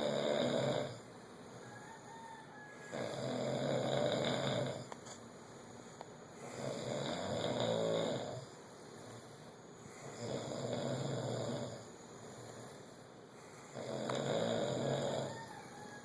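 Snoring: a rough, loud snore about every three and a half seconds, in a steady rhythm with quieter gaps between.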